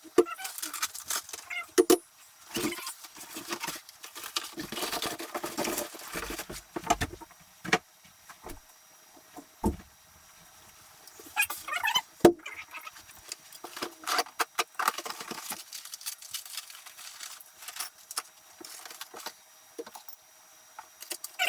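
Workbench kit parts being unpacked and handled: irregular knocks, clinks and rustling, with sharp clacks about 2 and 12 seconds in, quieter in the last few seconds.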